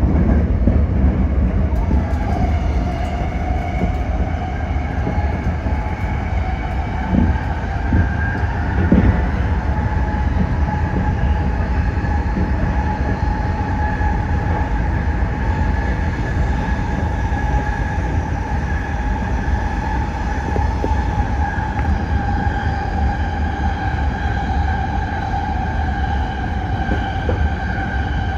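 Toyo Rapid Railway 2000 series electric train running on the line: a steady low rumble of wheels on rail, with a high whine that rises slightly a couple of seconds in and then holds steady. A few short knocks come through around seven to nine seconds in.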